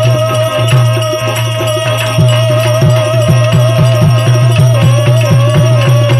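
Instrumental interlude of an Indian devotional bhajan: a wavering melody line is held over a steady low drone, and a hand-drum beat comes in about two seconds in at roughly three strokes a second.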